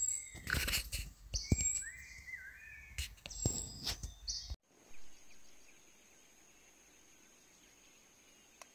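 Forest birds chirping and whistling, mixed with several sharp knocks or cracks. About halfway through, the sound cuts off abruptly to a faint background with one steady high-pitched tone.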